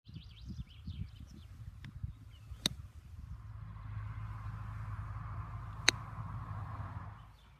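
Golf iron striking balls off turf: two sharp clicks of clubface on ball, about three seconds apart, over a steady low rumble. Birds chirp in the first second or so.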